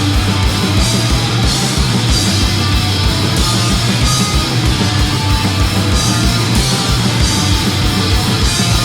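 Live punk rock band playing an instrumental passage: distorted electric guitars and bass over a fast, steady drumbeat, with no vocals.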